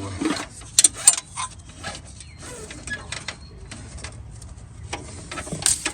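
Hands working on a riding mower's shift cable and its fittings: a few sharp clicks and knocks, about a second in and again near the end, over light rustling and handling noise.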